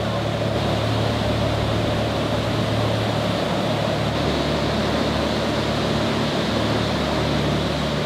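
Steady rush of a waterfall in flood, with a low steady hum beneath it.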